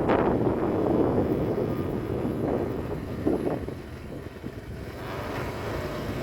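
Aircraft engine noise, a rushing rumble that fades through the middle and picks up a little near the end.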